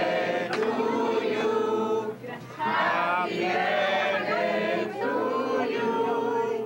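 A group of people singing a birthday song together before the candles on a cake, in long held phrases with a short pause about two seconds in.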